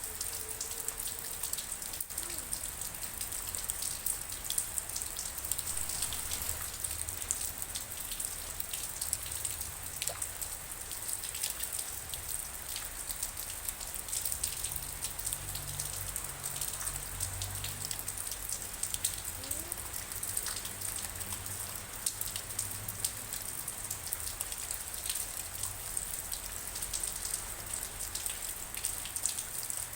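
Steady rain falling, a dense hiss with many individual drops ticking sharply on a surface.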